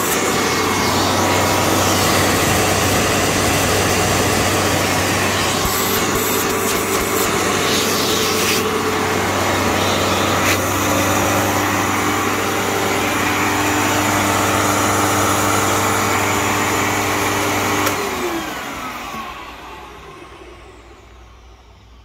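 Hoover WindTunnel U5753-900 bagless upright vacuum cleaner, 12-amp motor, running steadily with a whine that shifts in tone about ten seconds in. About eighteen seconds in it is switched off, and the motor winds down with a falling whine that fades away.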